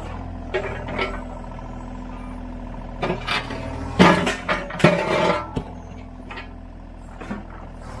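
Mini excavator (track hoe) running steadily while its bucket and thumb grab and scrape broken concrete slab, with a burst of clunks and grinding concrete about halfway through.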